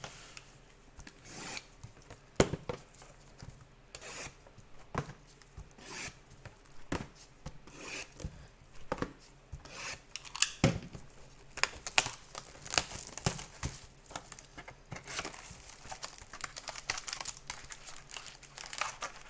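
Packaging for boxes of football trading cards being torn open and crinkled, with irregular sharp rips and rustles that run into denser crinkling near the end.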